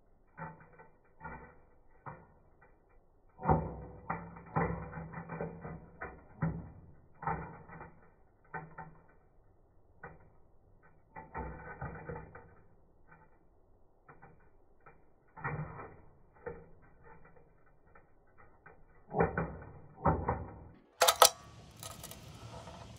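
Irregular clicks and clattering of small metal debris as a magnetic driveway sweeper pulls it off the pavement and it snaps onto the magnet bar. Near the end comes a single sharp crack, followed by a brief hiss.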